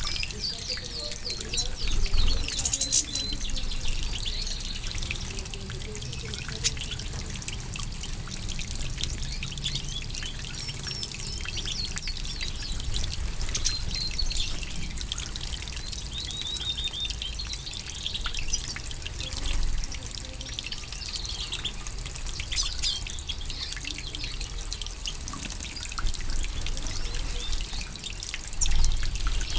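Water spraying steadily into an aviary and pattering onto the ground and plants, while European goldfinches twitter and chirp.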